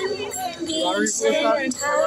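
A song with singing voices over music.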